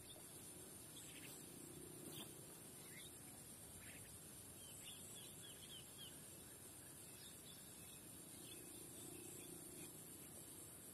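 Faint outdoor ambience: a steady high insect drone with scattered small bird chirps, a quick run of chirps about halfway through.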